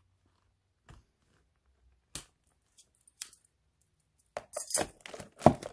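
Hands handling a leather handbag and its leather lacing: a few separate light clicks, then a run of rustling and crackling from the leather near the end.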